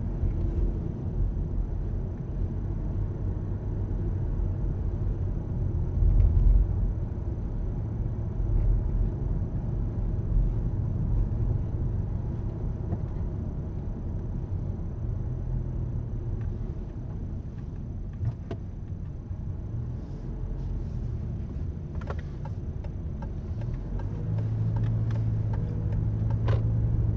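Car driving at town speed, heard from inside the cabin: a steady low rumble of engine and tyres, with a few faint clicks. The engine tone grows stronger in the last few seconds.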